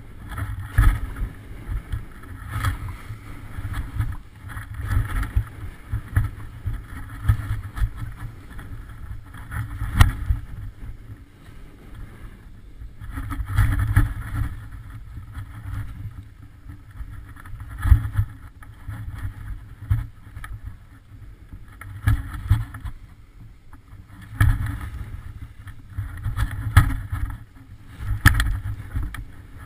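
Skis turning down steep snow: the edges scrape and hiss on the snow in surges every second or two, with each turn. A low rumble of wind on the camera microphone runs underneath.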